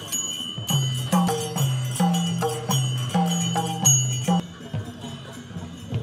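Music with jingling bells marking the beat over a low melody that steps between a few notes. A little past four seconds in it drops to a quieter, thinner background.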